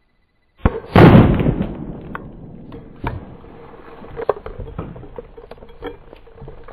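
Stoeger double-barrel 12-gauge shotgun fired once into a water-filled bucket close by: a sharp crack, then a loud blast about a second in. Spattering water and debris come down in scattered pattering ticks for several seconds after.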